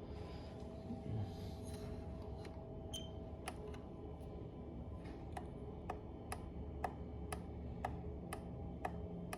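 Faint, regular ticking, about two ticks a second, starting a couple of seconds in, over a steady low hum.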